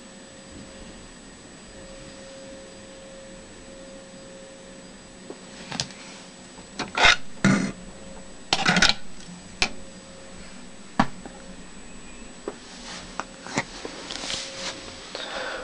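A faint steady hum for about five seconds, then a string of irregular knocks and clatters, some of them loud, from objects being handled and moved about.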